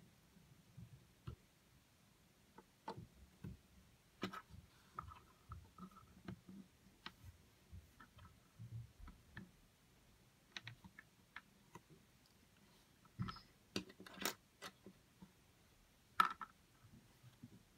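Lego minifigure pieces being handled, snapped together and set down: scattered small plastic clicks and taps at an uneven pace, with a few sharper clicks in the last few seconds.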